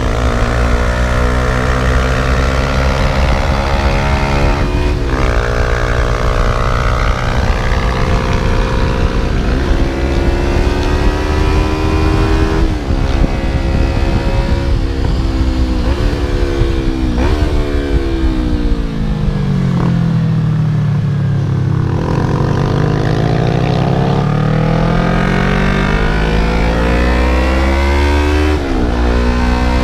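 Yamaha YZF-R3's parallel-twin engine under way, accelerating up through the gears: the pitch climbs and drops back at each of several upshifts. About two-thirds through, the pitch falls slowly as the bike slows, then it climbs again to another shift near the end.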